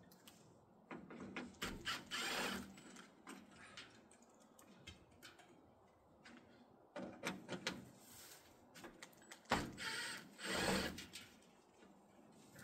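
Tool work on the metal chimney cap: clicks, knocks and scraping in three short bouts with quiet gaps between.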